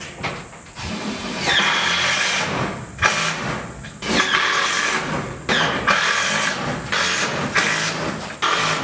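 Cordless power driver running in a series of bursts of a second or so each, one after another, driving screws through metal panels into wooden framing. The motor's whine rises and falls with each drive.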